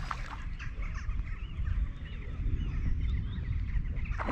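Wind buffeting the microphone with a low rumble, while birds call in short, repeated chirps.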